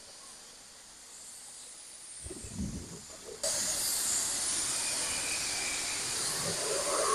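A faint hiss, then a few low knocks, then a much louder steady hiss that starts abruptly about three and a half seconds in.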